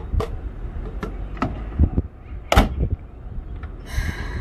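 Keikyū 2100-series electric train standing at the platform: a low rumble with a few sharp knocks, the loudest about two and a half seconds in. Near the end the traction equipment starts up with a steady high multi-tone whine as the train begins to move off.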